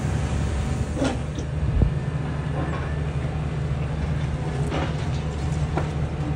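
High-reach demolition excavator's diesel engine running steadily, while its jaws break away concrete. There are short cracks of breaking concrete about a second in, near five seconds and near six seconds, and a low thump of falling debris just before two seconds.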